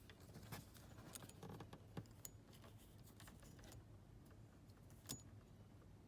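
Near silence with a few faint, sharp clicks and light rattles, the clearest about two seconds and five seconds in.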